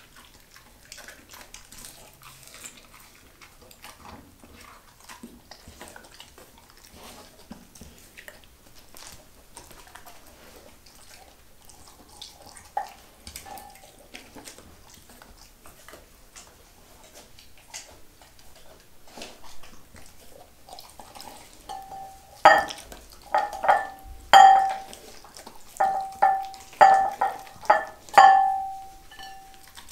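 A dog eating raw food from a glass bowl: faint licks and small clicks at first, then, from about two-thirds of the way through, a series of loud clinks as its muzzle and teeth knock against the glass, each ringing briefly.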